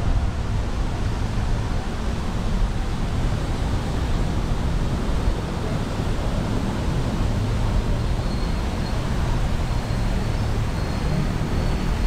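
Wind rushing over an action camera's microphone while cycling: a steady low rumbling hiss.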